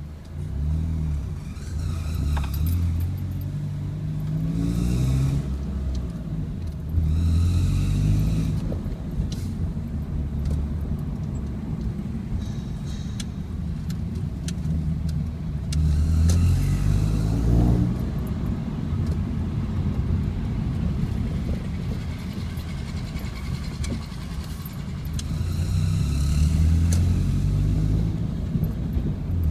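2001 Honda Civic's four-cylinder engine running at low revs, its pitch rising and falling several times, carrying a noise that comes up only at about 2,000 rpm or lower and that the owner cannot identify, despite a new timing belt, tensioner bearing, water pump and drive belts. From about 20 to 25 seconds in, noise from road repair machinery joins in.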